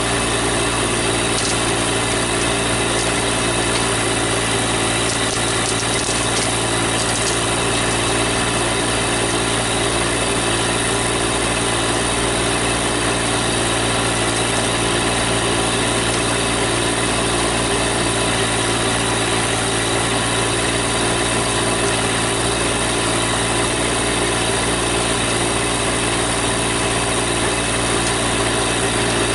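Compact tractor engine running steadily at one speed, with a few faint ticks in the first few seconds.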